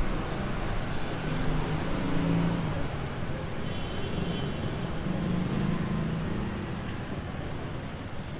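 Busy city street traffic: vehicle engines running steadily under the general noise of the road.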